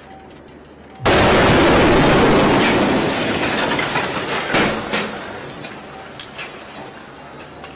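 Explosive device in a van detonating: a sudden, very loud blast about a second in, its noise dying away over the next several seconds, broken by a few sharp cracks and clatters.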